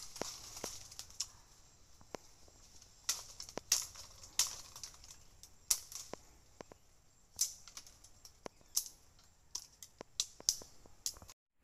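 Machete chopping through stems and branches in undergrowth: a string of sharp, irregular strikes, some coming in quick pairs.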